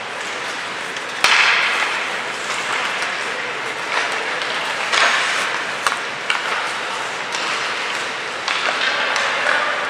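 Ice hockey practice in an echoing indoor rink: skate blades scraping and hissing on the ice, with sharp clacks of sticks on pucks. A loud scrape comes about a second in, with others near the middle and end.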